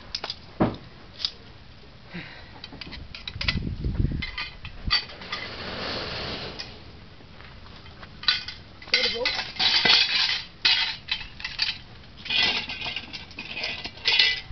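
Metal clinking and rattling of zipline gear (pulley trolley and carabiners) on the steel cable. The clinks come in dense clusters in the second half, with a low rumble around four seconds in.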